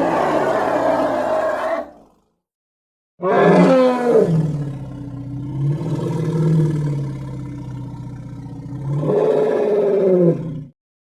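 Triceratops roar sound effects: a roar of about two seconds that cuts off, then after a second of dead silence a long, drawn-out roar whose pitch slides down at the start and climbs again near the end.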